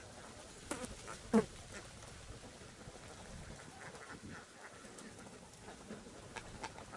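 Domestic ducks quacking in a few short calls, the loudest about a second and a half in, with fainter quacks later on.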